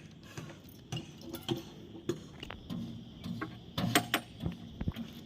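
Irregular metal clinks and knocks from tools at work on the excavator bucket's teeth, with two louder strikes about four seconds in.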